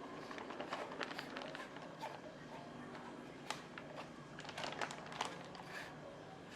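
Scattered light clicks and taps of kitchen items being handled, with a few sharper knocks in the second half.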